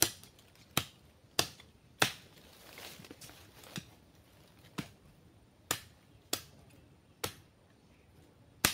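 Repeated sharp knocks of a tool striking wood, about ten blows at uneven intervals, some coming half a second apart, as a stake is worked into place.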